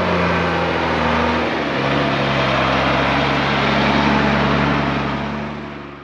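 Mercedes Unimog U1700L's six-cylinder diesel engine running as the truck drives past at low speed on a dirt track. The engine note drops about one and a half seconds in, then holds steady before fading out near the end.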